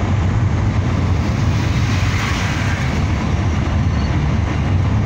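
Road and engine noise heard inside a moving car: a steady low rumble, with a brief swell of hiss about two seconds in.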